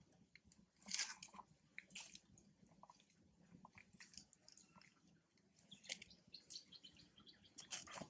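Faint crunching and clicking of a long-tailed macaque chewing food, with louder crunches about a second in and near the end.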